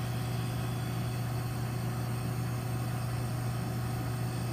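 Medium-temperature refrigeration condensing unit running, its compressor giving a steady low hum with no change.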